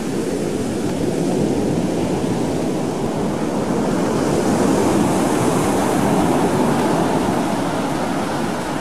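Ocean surf breaking on a sandy beach, a steady rushing noise that swells to a peak about halfway through.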